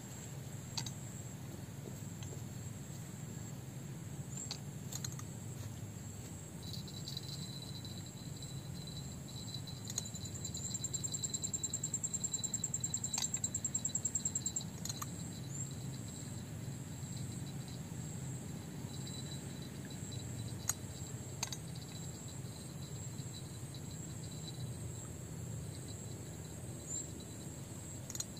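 Insects chirring steadily over a low outdoor rumble. About ten seconds in, a rapid pulsing buzz swells louder for about four seconds and then stops, with a few faint clicks here and there.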